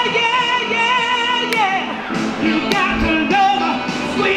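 A woman singing through a small portable amplifier. She holds a long high note with vibrato for about two seconds, lets it fall away, then sings on in short phrases.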